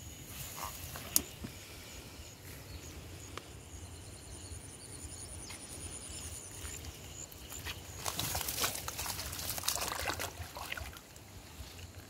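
Soft rustling of wet grass and leaves as a turtle is handled, then a louder stretch of rustling and splashing about eight seconds in as the turtle goes into shallow muddy water.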